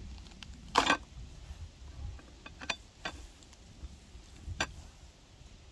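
Hands pulling apart a boiled sheep's head: a loud crackling snap of bone or cartilage about a second in, then three smaller clicks and cracks as the meat is torn off the skull.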